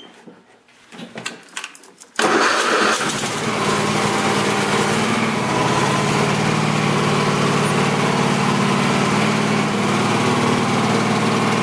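Craftsman lawn tractor engine started after a few faint clicks: it comes on suddenly about two seconds in and then runs steadily. This is the test run after the drive pulley and electric clutch were replaced.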